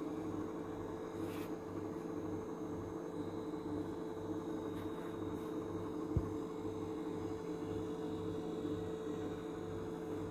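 Steady electrical hum with a low throb pulsing a little over twice a second, and a single soft tap about six seconds in.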